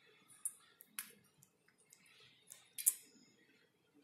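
A few scattered light clicks, about four, the sharpest a little before three seconds in.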